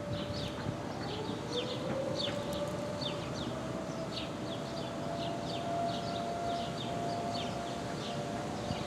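Distant outdoor warning sirens: one steady tone already sounding, joined a little over a second in by a second siren winding up in pitch and settling to a steady tone. Birds chirp repeatedly over them.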